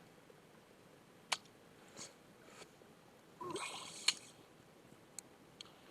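A few faint, isolated computer keyboard clicks over quiet room tone, with a short soft rustle about halfway through.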